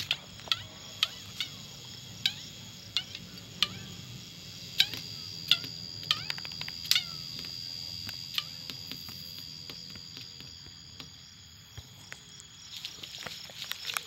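Sound-effects track from an animated film: a scatter of short sharp ticks, some sliding down in pitch, over a low steady rumble. A thin high steady tone comes in about four seconds in and fades out after about five seconds.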